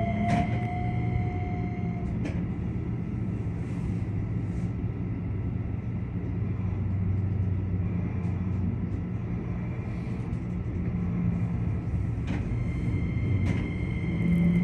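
Keikyu electric train running on the line, heard from the cab: a steady low rumble of wheels on rail, with the motor whine rising in pitch during the first two seconds and again near the end. A few sharp clicks from the track are scattered through it.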